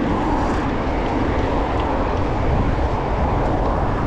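Steady rushing noise of wind buffeting the microphone while cycling on a mountain bike, with road traffic running alongside.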